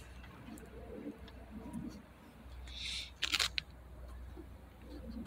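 Hands handling a new trunk gas strut at its mounting point: a short rustle, then a quick cluster of sharp clicks about three seconds in, over a low steady hum.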